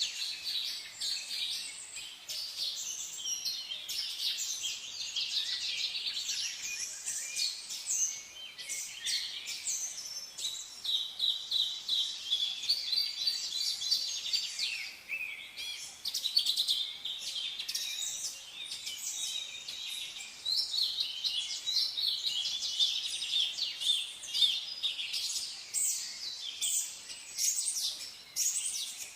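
A chorus of many songbirds chirping and singing at once, their high calls and quick trills overlapping without a break.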